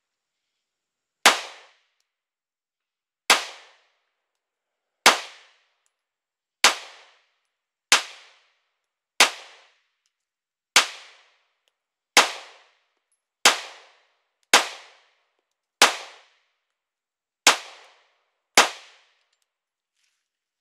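Polymer 80 Glock 19 9mm pistol fired in slow, single shots, thirteen of them about one to two seconds apart, each a sharp crack with a short ringing tail. These are the first rounds through the newly built pistol in a function test, and it fires steadily shot after shot.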